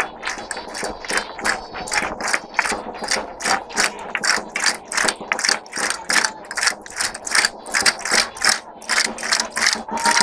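Castanets clicking in a fast, even rhythm, about four clicks a second, played by folk dancers, with faint music underneath.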